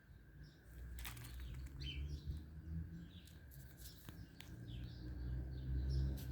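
Small birds chirping in short repeated calls over a steady low rumble, with a faint steady high tone and a few sharp clicks about a second in and again around four seconds.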